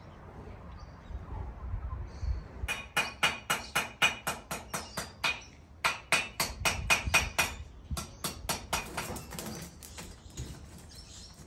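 Blacksmith's hammer striking metal on an anvil in quick runs of about four ringing blows a second, with a short break partway through and lighter taps near the end.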